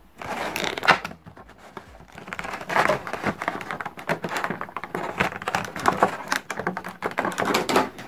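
Clear plastic blister insert crinkling and crackling in the hands as a vinyl figure is pulled out of it, in irregular bursts.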